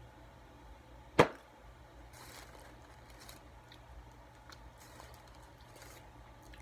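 A single sharp knock or snap about a second in, followed by faint scattered rustling and ticking over a low steady hum.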